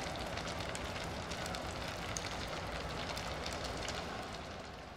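Countless small pebbles striking the stone Jamarat pillar and its basin in a dense, irregular clatter of clicks, over the steady din of a vast crowd. It eases slightly near the end.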